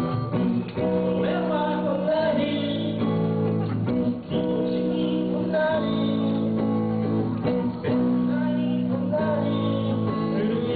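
Music with guitar and a singing voice over sustained chords that change every couple of seconds.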